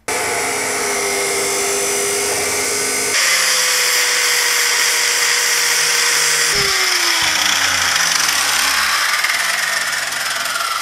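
Corded power tools working 14-gauge steel square tubing: drilling the matching holes and grinding the metal, a loud steady hiss over a motor whine. The sound changes abruptly at about three and six and a half seconds in, and after the second change a motor's pitch falls as it spins down.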